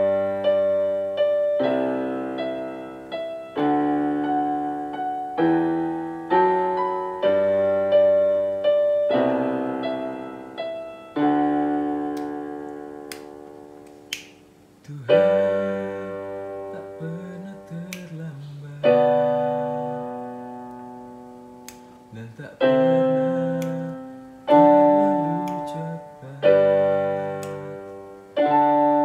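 Yamaha portable keyboard played with a piano voice: slow chords in the right hand over bass notes in the left. Each chord is struck and left to fade before the next, about every one to two seconds.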